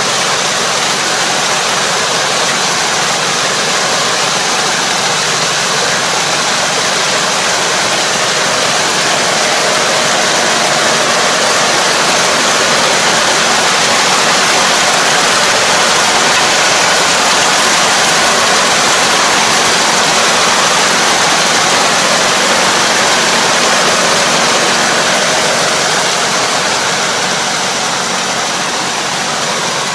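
Steady rush of muddy paddy water churned by a Kobashi puddling harrow's rotor as it works a flooded rice field, over the steady running of the half-track tractor's engine.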